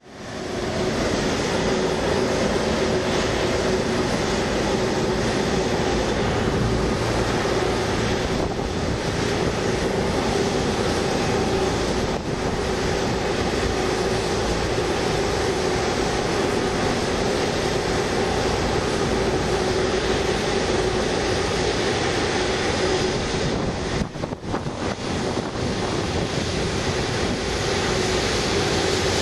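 Airbus A330-300 airliner's jet engines running at taxi power as it rolls past: a steady whine over a rush of engine noise, fading in at the start.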